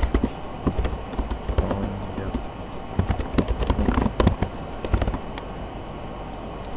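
Typing on a computer keyboard: a quick, uneven run of key clicks lasting about five seconds, then it stops.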